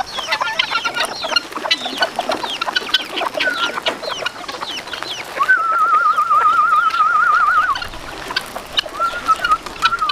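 Flock of farmyard chickens and chicks around scattered grain, with many short falling peeps and clucks. Midway a long, fast-wavering trilled whistle holds for about two seconds, and a shorter one starts near the end.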